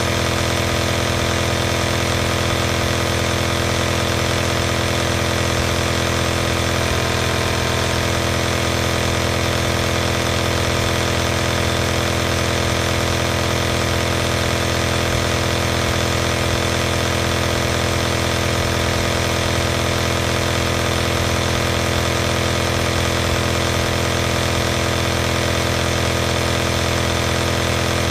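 Compressor nebulizer's electric air pump running continuously: a steady mechanical hum with an even hiss over it.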